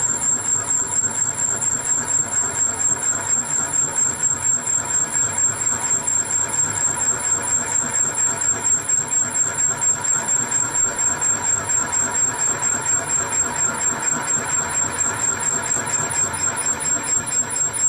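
Valve guide cutting machine's spindle driving a cutter down into the top of a valve guide on a Rover V8 cylinder head, machining it for a valve stem seal conversion. A steady high whine sits over the cutting noise, with a rapid, regular pulsing.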